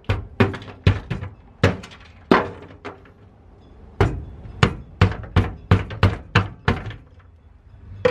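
Hammer blows on a car's sheet-metal floor pan, knocking loose sound-deadening mat frozen brittle with dry ice. The sharp knocks come about two or three a second, with a pause of about a second partway through.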